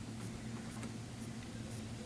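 Quiet room tone with a steady low electrical hum and faint handling noise; no distinct shear snip stands out.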